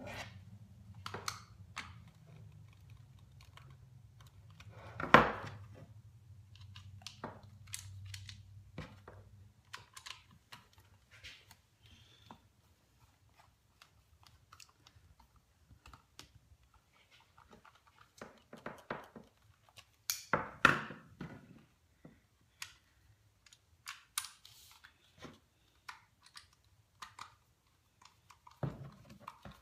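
Scattered clicks and knocks of objects being handled, with two louder knocks about five and twenty seconds in. A low hum stops about ten seconds in.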